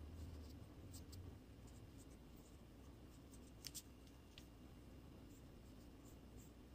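Near silence with faint scratches and a few light ticks, about a second in and again a little past the middle: an ink brush touching and working on rice paper.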